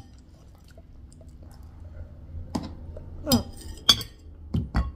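A metal spoon clinking and scraping on a ceramic plate and a drinking glass knocking on the table. The sounds come as a few separate sharp clinks in the second half, after a quiet start.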